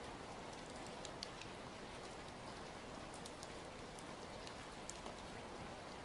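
Steady rain falling on a wet street, an even hiss with scattered sharp ticks of individual drops.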